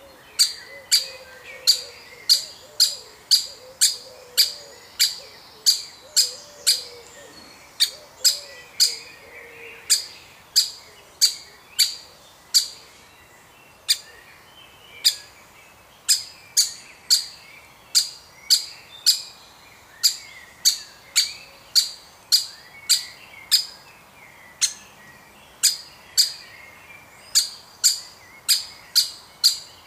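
Woodpeckers calling: sharp, short, high notes repeated about twice a second with brief pauses, over fainter chattering.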